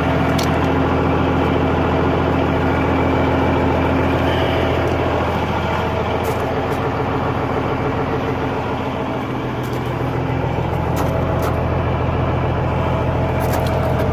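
Diesel semi-truck engine idling steadily, with a few faint clicks now and then.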